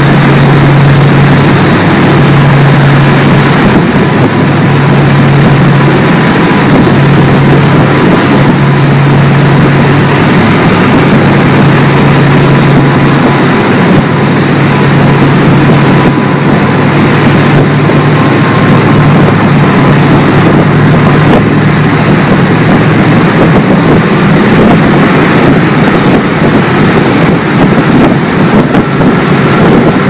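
Twin MTU diesel engines driving Hamilton waterjets at high speed: a loud, steady low drone over the rush of the churning wake.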